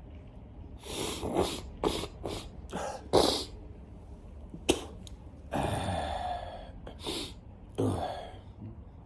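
A person in a sneezing fit: a quick run of short sneezes and coughs in the first few seconds, a sharp snap near the middle, then a longer noisy burst of about a second and two more sneezes near the end.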